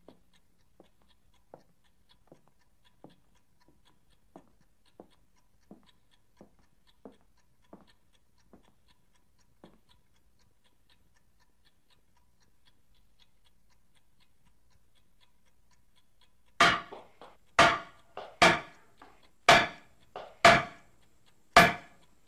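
A kitchen knife chopping carrots on a wooden cutting board: sharp strikes about once a second, beginning past the middle and much the loudest sound. Before them come faint, regular ticks about every three quarters of a second, which die out about halfway through.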